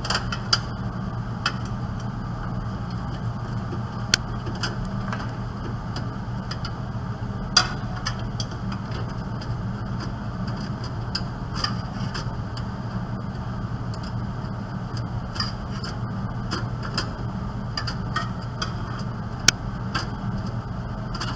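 Scattered sharp clicks, scrapes and small metal knocks from a screwdriver and screws as a hard disk is unscrewed and taken out of a desktop computer case, over a steady low hum.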